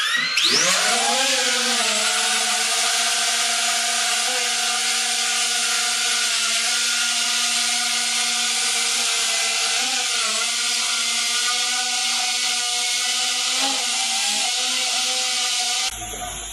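Sky-Hero Loki 2 quadcopter's four motors and guarded propellers spinning up and lifting off about half a second in, then a steady buzzing whine of several tones with a hiss, its pitch wavering now and then as it flies. It cuts off abruptly near the end.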